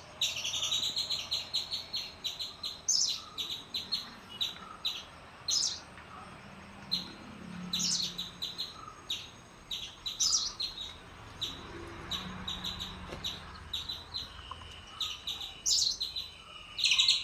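Birds chirping: quick runs of short, high calls, several a second, that break off and start again.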